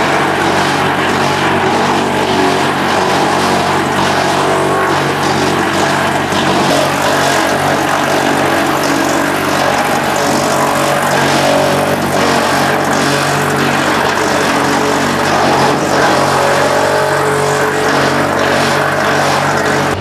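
Skorpion 500EB stationary drum wood chipper running under load, a steady machine drone with a dense rushing noise as wood chips pour from the discharge.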